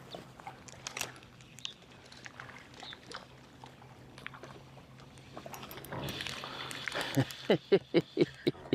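A man laughing in a quick run of short 'ha' bursts near the end, after a stretch of faint scattered clicks.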